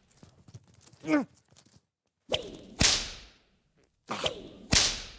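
Whip-crack and whoosh sound effects in two pairs, each a short snap followed by a louder crack with a long fading tail, timed to a man's comic flailing as he struggles with finger traps stuck on his fingers. A brief falling voice-like sound comes about a second in.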